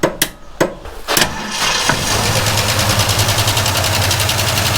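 Starter motor cranking a 1967 Ford Mustang's V8, after a few clicks, in a steady even rhythm without the engine catching. The engine is not getting fuel to the carburettor and the battery is weak.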